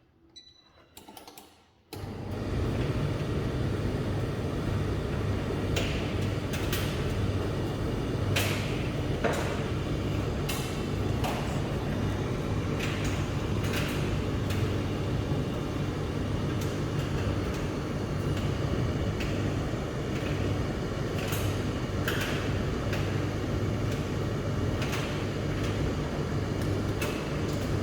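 Bosch Maxx8 Sensitive tumble dryer starting abruptly about two seconds in after a few faint clicks, then running steadily with a low motor and fan hum and irregular clacks from the turning drum.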